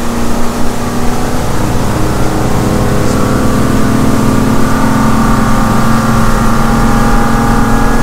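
The Chaparral 276 SSX's Volvo Penta 8.1-litre V8 sterndrive running steadily with the boat on plane, heard at the helm over the rush of wind and water. The engine drone firms up and gets slightly louder over the first couple of seconds as the boat settles.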